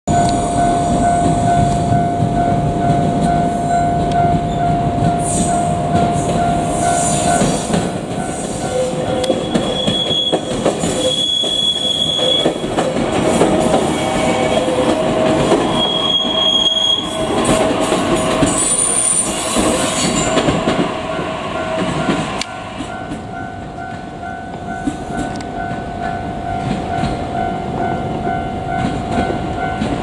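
JR Kyushu 817 series electric train running past over the rails, with brief high wheel squeals near the middle. The train sound drops off after about twenty-two seconds as it moves away. A level crossing warning bell rings steadily and repeatedly throughout, and a steady held tone sounds for the first seven seconds or so.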